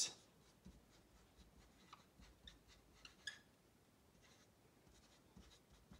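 Faint, scattered scratches and squeaks of a felt-tip marker writing on a board.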